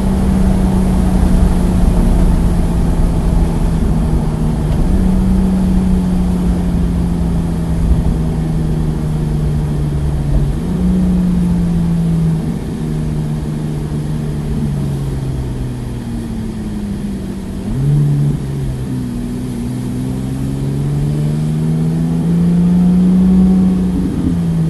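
Porsche 991.1 GT3's flat-six engine running at moderate, fairly steady revs, its pitch stepping down or up at several gear changes and climbing slowly near the end.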